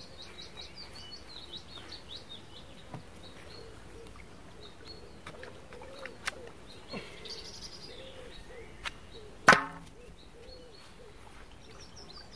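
Small birds chirping in the background, with a few faint clicks and one sharp knock about two-thirds of the way through, from tackle being handled while a carp is netted at the water's edge.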